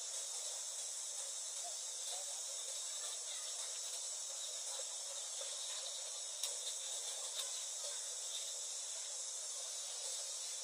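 Steady high-pitched chorus of forest insects, with a couple of faint clicks about two-thirds of the way through.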